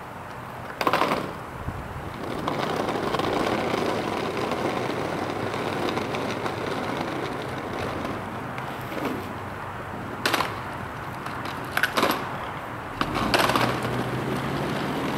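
Plastic wheels of a child's ride-on toy rolling over an asphalt street, a steady rumbling noise broken by a few sharp knocks.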